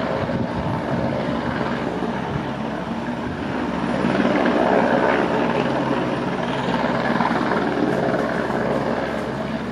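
Rescue helicopter flying, its rotor and engine drone running continuously; it grows louder about halfway through and eases off a little near the end.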